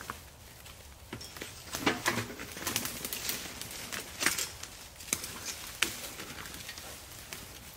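Dry fallen leaves crunching and rustling in irregular bursts as a hand-pulled, loaded wheeled cart, footsteps and running dogs move through the leaf litter.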